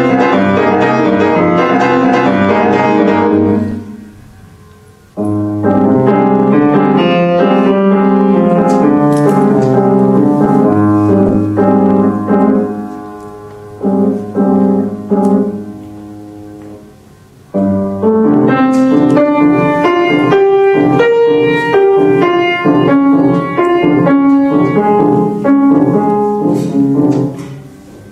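Grand piano played solo: a classical piece in phrases. Several times the notes are left to die away before the playing starts again, loudly, about five seconds in and again past the middle.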